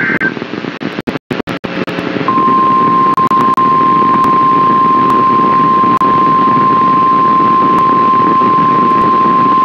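NOAA Weather Radio warning alarm tone: a single steady 1050 Hz beep that starts about two seconds in and holds unbroken over radio static hiss, signalling that a warning broadcast is about to follow. Before the tone the static drops out in brief gaps.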